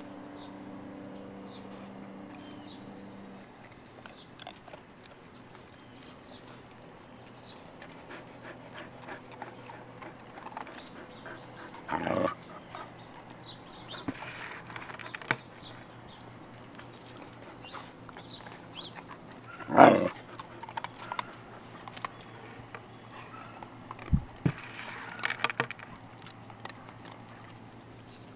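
Insects trilling steadily in a constant high-pitched drone, with a few brief louder noises from the puppies and the wire fence, the loudest about two-thirds of the way through.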